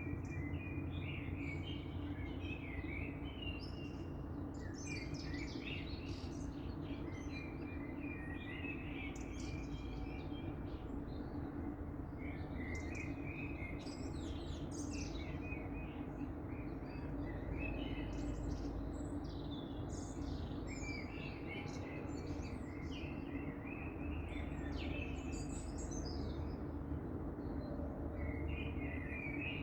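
Songbirds singing in a dawn chorus, with overlapping warbling phrases every few seconds over a steady low hum.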